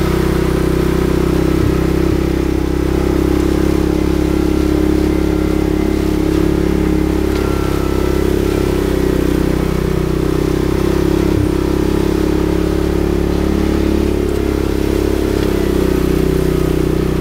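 Engine-driven machinery running at a steady speed, working a chain conveyor with metal flights that drags soil or compost. A few clanks come through, two about two seconds in and one more later.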